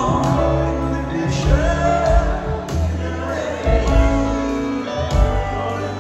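Live band performance: a man singing a slow song over acoustic guitar and piano.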